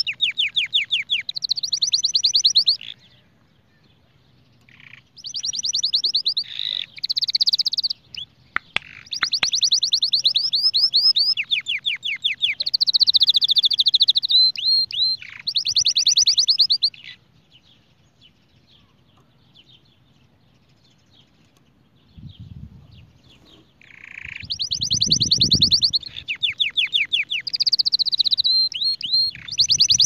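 White domestic canary singing: long phrases of fast repeated trilled notes, broken by two pauses of a few seconds.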